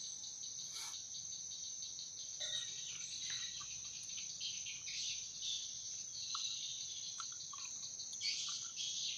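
Steady high-pitched chorus of crickets or similar insects, with scattered short chirps over it.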